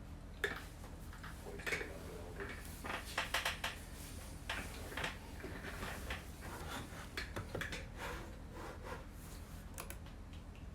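Scattered light clicks and rustles of small handling at a desk, irregular and busiest in the middle, over a steady low hum.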